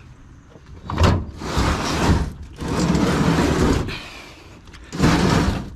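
Metal-cased drawer dishwasher being pushed and slid across a floor, scraping: a knock about a second in, then three long scraping pushes with short pauses between.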